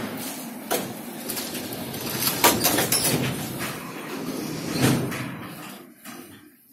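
Metro car sliding doors closing with a thud, amid the car's and platform's noise, with a few more knocks; the sound dies away near the end.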